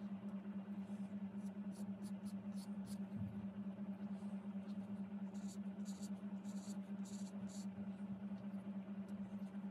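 A steady low hum with short, faint scratches of a bamboo reed pen's nib dragging across card as ink strokes are drawn.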